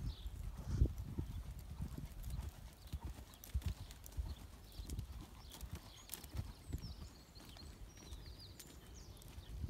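Hoofbeats of a grey pony being ridden around an outdoor arena: a run of soft, uneven thuds from its hooves striking the arena surface.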